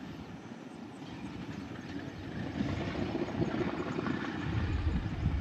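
Low, steady rumble of a moving vehicle, growing louder from about halfway through.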